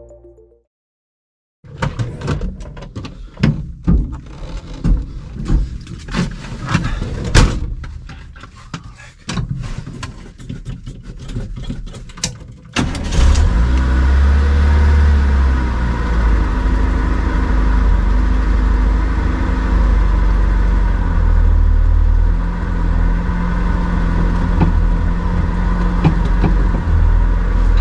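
Scattered knocks and clatter, then the engine of a karakat, a homemade low-pressure-tyre all-terrain vehicle, comes in just before halfway and runs steadily and loudly.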